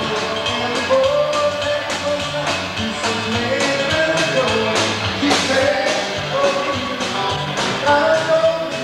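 Rock-and-roll music with a singing voice over a steady beat.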